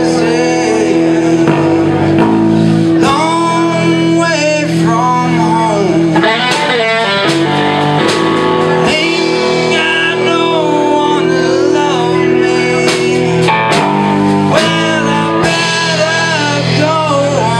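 Live blues band playing electric guitars and a drum kit, with a melody line of bending notes over a steady groove.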